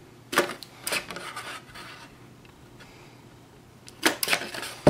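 Big Bite hand-held hole punch squeezed through patterned cardstock to punch 3/16-inch holes: a short sharp crunch about a third of a second in and another just under a second in, then a cluster of clicks and crunches near the end.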